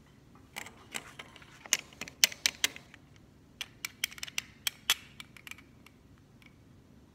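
Small Magic Mixies Mixlings plastic toy figure and its plastic pieces being handled: an irregular run of sharp clicks and taps, with a short pause partway through.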